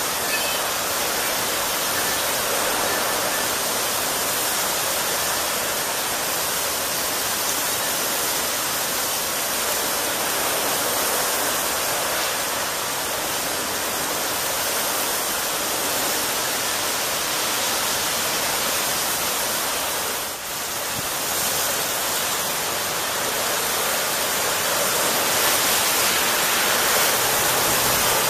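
Torrential rain pouring down in a steady, heavy hiss.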